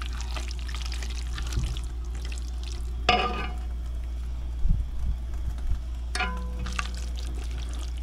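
Stir-fry sizzling lightly in a pan over a steady low hum. A spatula scrapes and clinks against the pan about three seconds in and again a little after six seconds.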